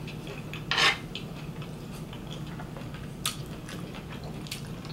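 A spoon scraping across a tray of food, one louder scrape about a second in and a shorter one after three seconds, with a few light clicks between.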